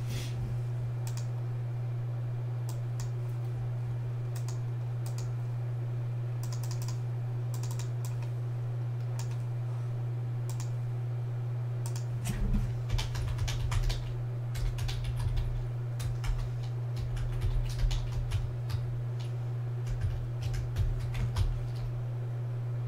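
Typing on a computer keyboard over a steady low hum. The keystrokes are scattered at first, then come in quicker runs with low knocks during the second half.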